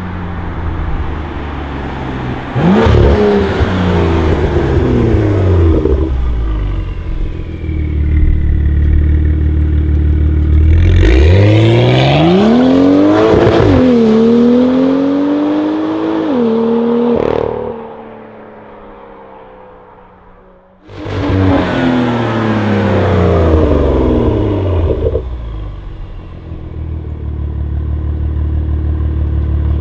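BMW M2's turbocharged straight-six running through a full iPE titanium exhaust, accelerating hard with its pitch climbing, stepping down at a gear change and falling again as the car passes. The sound drops away for a few seconds about two-thirds in, then returns suddenly with another loud pass and revving.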